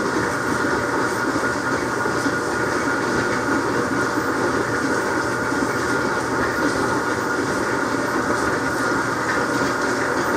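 Steady mechanical rumble of running rock-tumbling machinery, with a high steady hum over it and no change in level.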